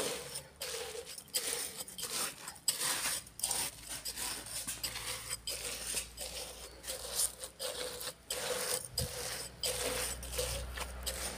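Hands mixing and crushing crisp fried edible-gum puffs with roasted flour in a large metal kadhai: dense, irregular crunching and rustling.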